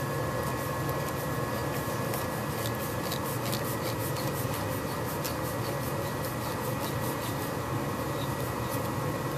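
Steady machine hum in a woodworking shop, with faint light clicks as a turned wooden mushroom cap is twisted by hand onto a bottle stopper held on a locked lathe.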